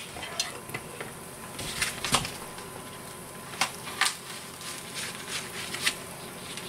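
A small breaded test piece frying in hot oil in a nonstick frying pan: a light sizzle with scattered pops and crackles, about half a dozen, the loudest about two and four seconds in.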